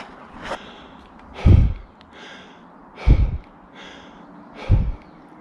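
An exhausted runner's heavy, laboured breathing close to the microphone: three loud exhales about a second and a half apart, each puffing on the mic, with softer inhales between.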